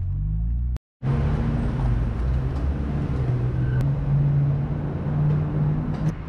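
Car engine running inside the cabin, cut off abruptly under a second in, then steady outdoor traffic and engine noise at a fuel pump with a low wavering hum. There is a short, faint beep about four seconds in.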